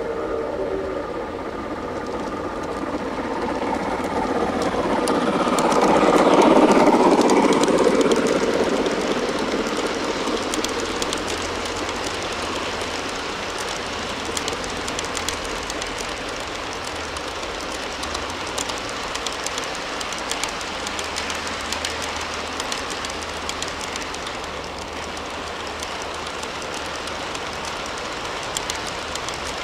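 Long G-scale model train of tank cars rolling past on outdoor track, with steady wheel rumble and fine clicking over the rail joints. It swells to its loudest about six to eight seconds in, then settles to a steady clatter as the cars stream by.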